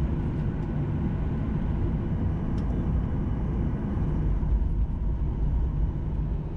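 Passenger airliner's engines, a steady low rumble with a faint hum, swelling slightly near the end.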